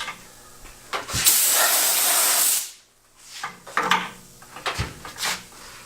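A short burst of pressurized spray hissing for about a second and a half, with a few light knocks and clicks of tools before and after it.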